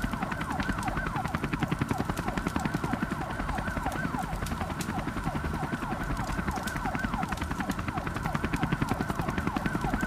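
Siren going in quick falling sweeps, several a second, over a fast, even low pulsing.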